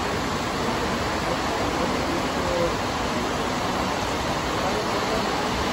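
Heavy rain pouring down steadily, a dense, even hiss.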